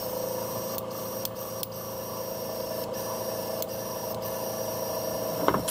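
An airbrush with its tip pushed into the port of a glass airbrush cleaning-station jar, blowing cleaner through into the jar to flush out acrylic paint, over the steady hum of the air compressor feeding it. A few faint clicks sound through it.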